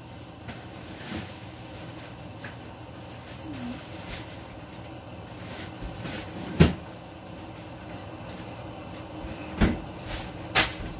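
Kitchen clatter from someone moving around off camera: a few sharp knocks and bangs, the loudest about two-thirds of the way through and two more near the end, over a steady low hum.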